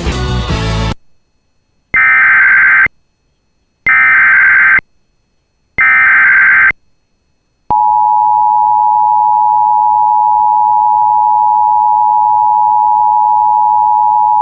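Emergency Alert System broadcast tones: after a short noisy burst at the start, three identical one-second bursts of buzzing SAME digital header data sound about two seconds apart. About seven and a half seconds in, the steady two-tone EAS attention signal begins, announcing a new severe thunderstorm warning.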